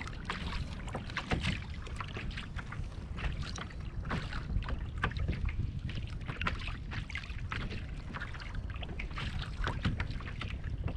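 Small waves slapping and lapping against a kayak's hull in irregular splashes, over a steady rumble of wind on the microphone.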